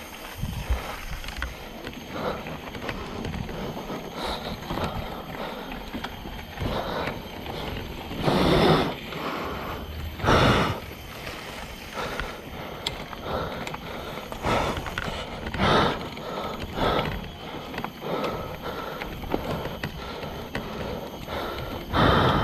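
Mountain bike rolling over a dirt singletrack: steady tyre noise on dirt and stones, with many small knocks and rattles from the bike over roots and rough ground. Four louder rushes of noise stand out, about a second long each.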